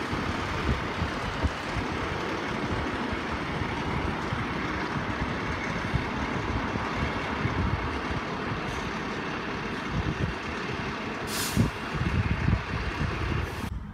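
Volvo fire engine's diesel engine running steadily as it reverses slowly into its bay, with a short hiss of air, likely from the air brakes, about eleven seconds in.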